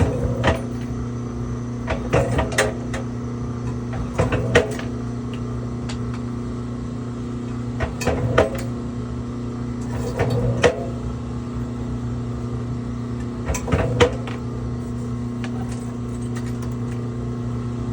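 1500-watt electric wire-stripping machine running with a steady hum while short scraps of wire are fed through it, each piece making a brief clatter of clicks and knocks, six times at intervals of about two to four seconds.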